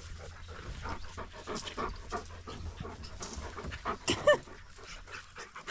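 Farm dogs panting in quick, repeated breaths, with a brief whine about four seconds in.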